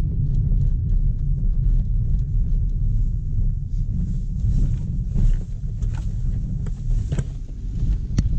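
Car driving on a rough gravel and dirt road, heard from inside the cabin: a steady low rumble of tyres and body, with sharp knocks and rattles from the rough surface starting about halfway through.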